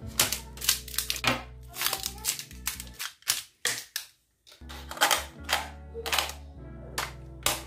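Sharp plastic clicks and knocks from handling an RC car's pistol-grip remote and its AA batteries: the battery cover comes off and the cells go into the compartment. Background music plays under it and drops out for a moment past the middle.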